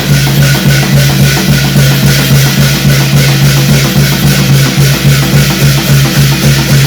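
Korean shamanic gut ritual music: drums and other percussion beating a quick, steady rhythm, with a steady low hum beneath and a bright metallic hiss above.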